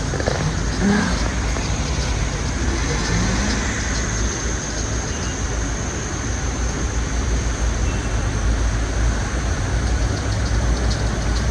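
Steady low rumble of a vehicle engine idling close by, with a constant high hiss over it.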